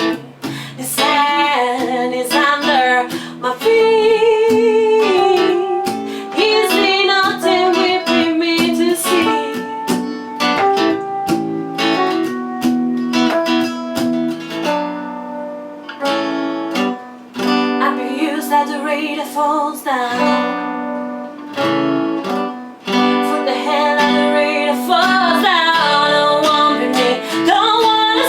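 Acoustic guitar strumming with a voice singing a melody over it.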